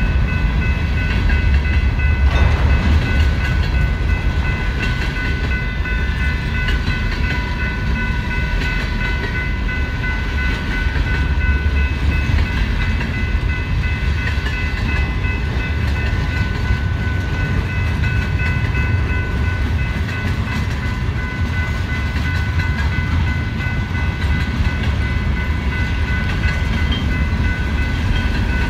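Freight train's covered hopper cars rolling past at a grade crossing: a steady heavy rumble of wheels on rail, with steady high ringing tones over it.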